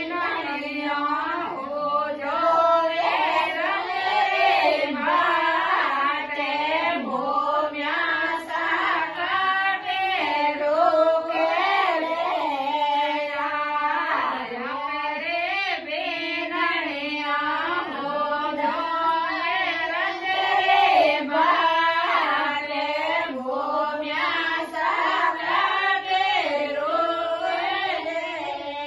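A woman singing a Marwari harjas, a Rajasthani devotional folk song, in a continuous ornamented melody line.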